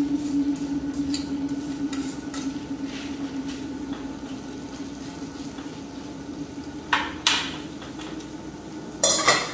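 Food frying in melted butter in a skillet, a steady sizzle, with a metal spoon stirring and clinking against the pan. Two sharp clanks come about seven seconds in, and a louder clatter of cookware near the end.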